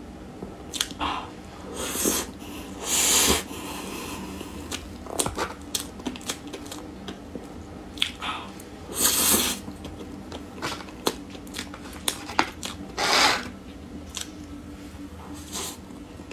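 Close-miked mouth sounds of eating soft red velvet cream cake: wet smacking and chewing clicks, with a few short, louder rushes of noise as bites are taken.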